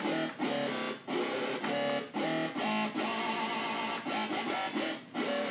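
Korg microKORG synthesizer playing a fat, distorted dubstep-style patch: a run of short, gritty notes, about two a second, some of them wobbling in pitch.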